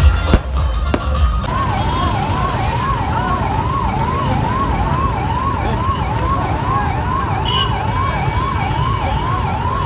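Ambulance siren sounding in a fast repeating sweep, each cycle rising then dropping sharply, about two a second, over a low traffic rumble. For the first second and a half, sharp firework bangs come before it.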